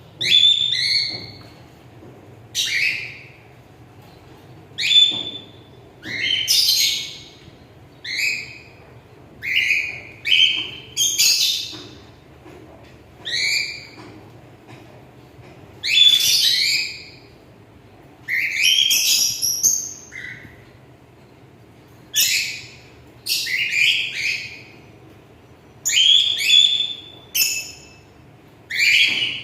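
Pet cockatiel chirping and calling in short separate bursts, one every second or two, each a quick sweep in pitch.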